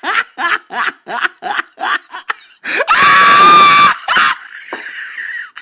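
Meme sound-effect clip: a voice laughing in quick, evenly spaced bursts, then a loud held scream about three seconds in that lasts about a second, followed by a shorter cry and fainter noise.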